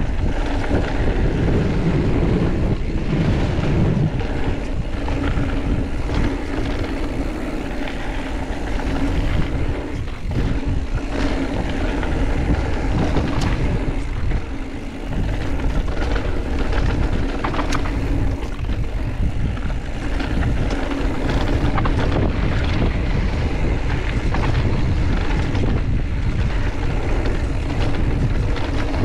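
Wind buffeting the microphone over the steady rumble and rattle of a mountain bike riding down a trail, with scattered knocks from bumps.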